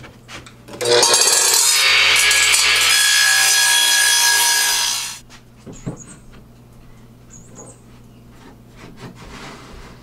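Radial arm saw starting up and cutting through a live-edge wooden slab. It runs loud for about four seconds and then shuts off. A few light wooden knocks follow as the cut board is fitted into the cabinet.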